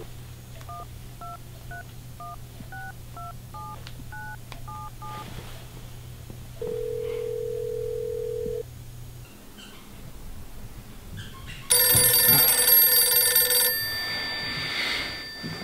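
A smartphone keypad dials a number: about ten touch-tone beeps in quick succession, then a single two-second ringback tone on the line. About twelve seconds in, a telephone rings loudly for two seconds at the called end.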